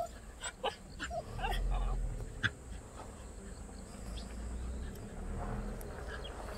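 Jindo dog whining several times in short rising and falling notes over the first couple of seconds, among a few sharp clicks and a brief low rumble, then fainter.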